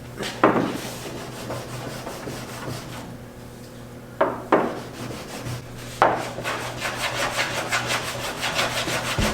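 Hand sanding block with 1500-grit sandpaper rubbing over car paint, wet sanding to level orange peel and dust nibs. A few separate strokes come first, then quick back-and-forth strokes from about six seconds in, over a steady low hum.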